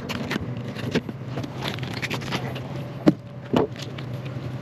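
An engine running steadily, with scattered clicks and knocks over it and two sharper knocks a little past halfway.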